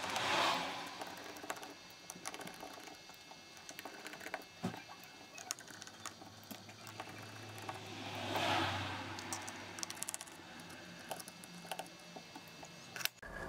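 Precision screwdriver working the tiny screws out of a phone's metal midframe: a run of light, irregular clicks and small scrapes, with two longer soft rustles, one at the start and one about eight seconds in.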